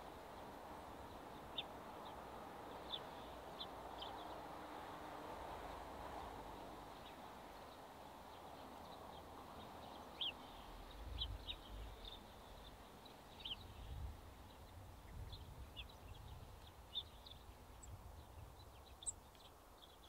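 Faint, short high chirps and calls of small songbirds, scattered irregularly, over a soft steady background hiss. A low rumble comes and goes in the second half.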